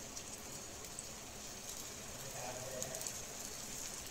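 Besan (gram-flour) batter sizzling in hot oil in a non-stick frying pan: a steady crackling hiss with scattered small pops.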